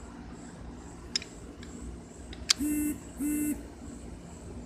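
A Kangertech Top Box Mini vape mod being handled: a few light clicks as its magnetic battery door comes off and goes back on over the battery, then two short steady tones about half a second apart, the loudest sounds here.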